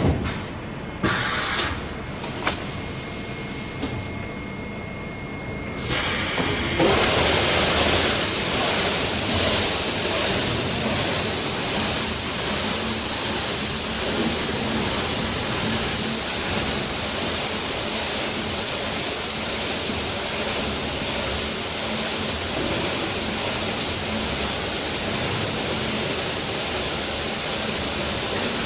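Tape slitting and rewinding machine at work: a few knocks and clicks and a brief steady tone, then from about six seconds in a loud, steady hiss as it runs.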